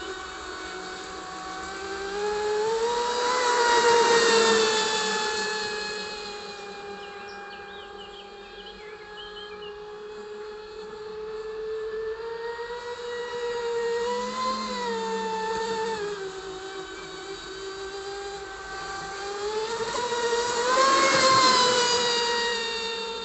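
Amewi Alpha RC mono racing boat on 6S power with a 4082 inrunner brushless motor, running at speed: a high, steady whine that swells and rises slightly in pitch three times as the boat passes close, with a hiss of spray at the loudest moments, then fades as it runs off.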